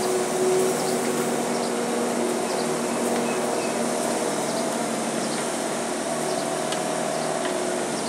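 Bobcat skid steer loader's engine running as it works, a steady hum whose pitch shifts up and down, over constant noise, with a few light ticks here and there.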